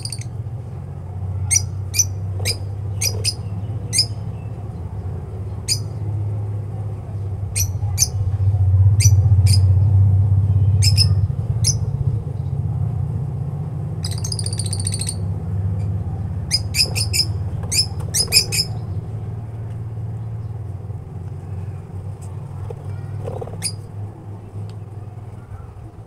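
Caged lovebirds giving sharp, high-pitched chirps in quick clusters, with a longer shrill call near the start and another about halfway through. Under them runs a steady low hum, a little louder over the middle third.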